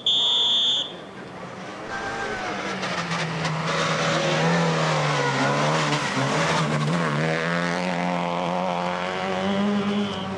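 Rally car engine running hard, its pitch rising and falling as it revs, with some tyre noise. A loud high electronic beep sounds in the first second.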